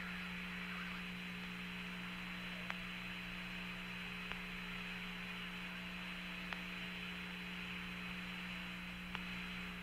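Steady hum and hiss of the Apollo 14 air-to-ground radio channel left open with nobody speaking, with a few faint clicks.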